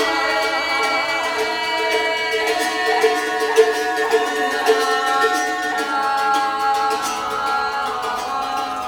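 Several voices singing long, held notes together in a free vocal improvisation, their pitches slowly shifting against one another. A few short sharp clicks come through in the middle.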